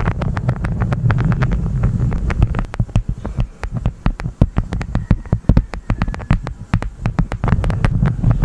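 Honeycomb wax being crunched and pressed, a dense run of sticky crackles and clicks. A low wind rumble on the microphone drops away after a couple of seconds and returns near the end.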